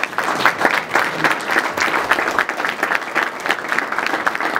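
Applause: a room of people clapping at a steady pace after a presentation ends.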